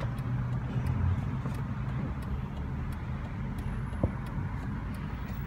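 Low, steady rumble of a car running, heard from inside its cabin, with one short light knock about four seconds in.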